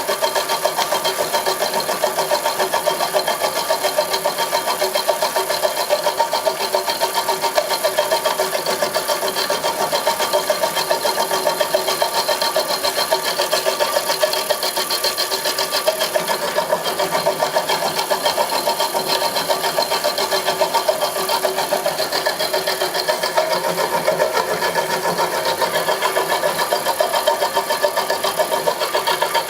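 Homemade milling machine running steadily, its motor and drive giving a fast, even rattle over a steady whine.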